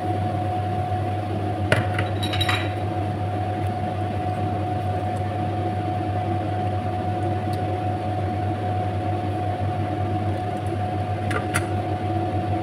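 Metal tongs clinking against a stainless frying pan: a few light clinks about two seconds in and a couple more near the end, over a steady low hum.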